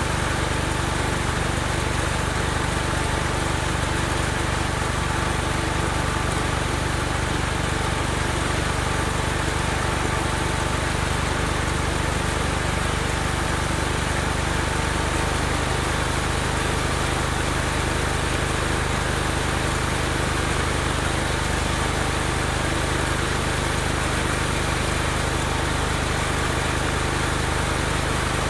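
Case 224 garden tractor engine running steadily at a constant speed, powering its snowthrower attachment. There is a thin steady whine over the engine sound.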